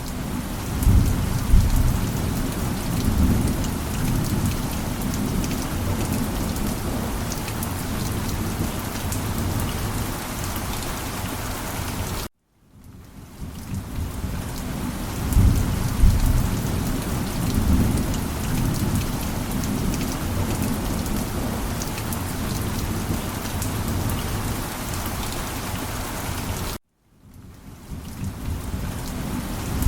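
Steady heavy rain with low rumbles of thunder. Twice the sound cuts out abruptly and fades back in, and a thunder rumble swells a few seconds after each return.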